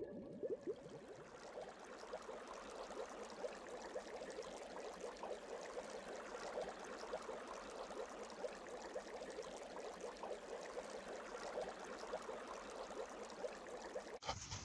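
Faint bubbling, fizzing water sound effect: a steady hiss full of tiny pops.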